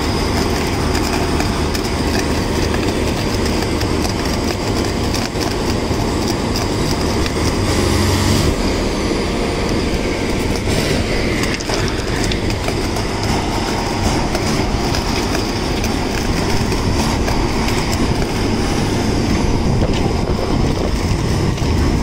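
Holland mobile flash butt welding head during the flashing stage: the rail ends arcing and spitting sparks, heard as a loud, continuous dense crackle over the steady drone of the welding machinery.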